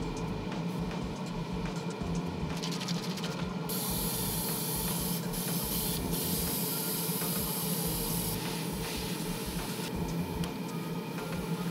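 Airbrush spraying a flat clear topcoat onto small figure parts: a hiss in bursts, loudest from about four to eight seconds in, with a brief break in the middle. A steady low motor hum runs underneath.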